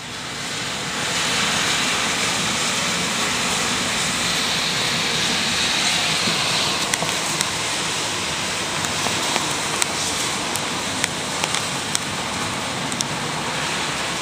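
Heavy rain falling steadily, a dense even hiss, with sharp taps of single drops striking something close by, several of them in the second half.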